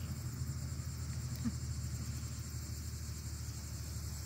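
Steady chorus of insects chirring, over a low steady hum.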